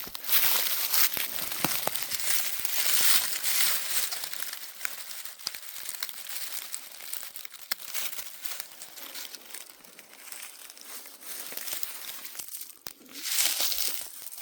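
Dry leaf litter rustling and crunching as someone moves and searches through it on the forest floor, with many small crackles and louder swells near the start and near the end.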